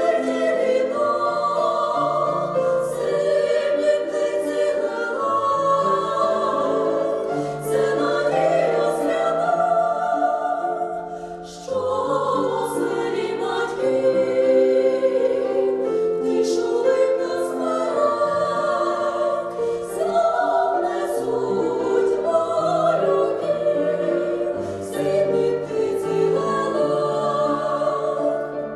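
Vocal ensemble singing a Ukrainian song in harmony, with a short break between phrases about eleven seconds in.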